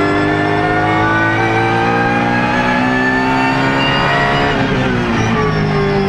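BMW Z4 GT3's V8 racing engine at full throttle, heard from inside the cockpit. The revs climb through a gear change about a second and a half in and keep rising, then fall about four and a half seconds in as the engine comes off the throttle, before picking up again near the end.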